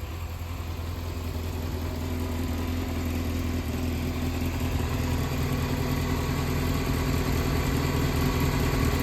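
Yamaha XJR400R2's air-cooled inline-four engine idling steadily, growing gradually louder. The seller describes it as running well with no abnormal noises.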